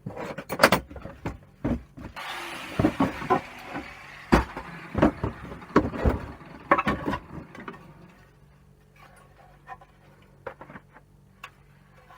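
Metal parts of a gas combi boiler clanking and knocking as it is pulled apart by hand, with a scraping hiss about two seconds in. It thins to scattered light taps in the second half.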